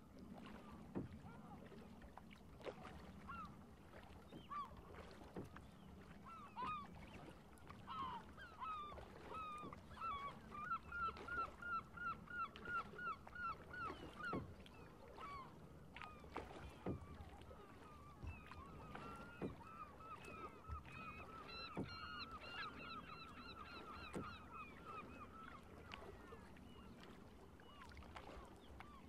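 Birds calling: short repeated calls, scattered at first, then two long runs of two or three calls a second, one about a third of the way in and another after a short pause. A faint low hum and occasional clicks lie underneath.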